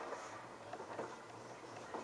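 LG Direct Drive F1222TD front-loading washing machine tumbling a wet load: a low steady hum with scattered soft clicks and splashes as water sloshes and the laundry drops in the drum.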